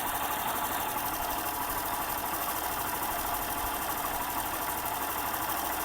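Hero Glamour BS6's single-cylinder engine idling steadily with a fast, even mechanical clatter, just after a new timing chain and tensioner were fitted. The grinding rattle of a worn timing chain is gone.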